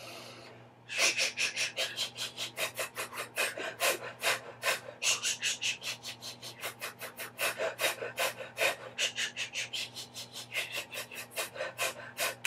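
A quick deep inhale, then a long run of short hissed 'f' pulses, about four a second, with brief gaps between groups. It is a singer's panting breath-support exercise, driven from the abdominal muscles.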